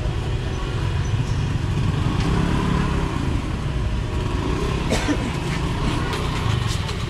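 Motorbike engines running close by in a narrow market alley, a steady low rumble, with a few sharp clicks about five seconds in.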